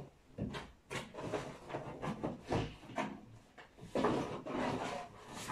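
Rummaging by hand: irregular knocks, clicks and rustles as things are moved about and searched through, with a few sharper knocks near the middle and a louder rustle about four seconds in.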